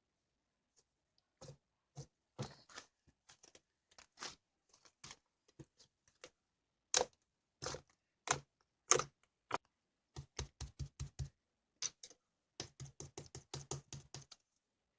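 White fluffy slime being pressed and squished by hand, giving irregular sticky clicks and pops with quick runs of clicks in the second half.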